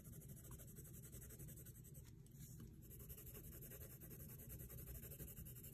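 Coloured pencil shading on paper: a faint, soft, steady scratching as the lead lays down an even tone.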